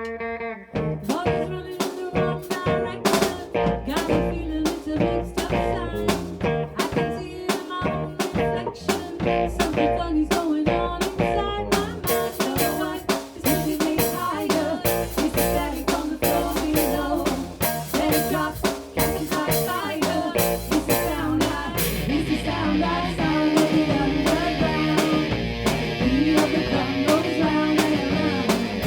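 Band music: a drum kit comes in about a second in with a snare and rimshot backbeat under guitar. A bright cymbal wash fills out the sound from about two-thirds of the way through.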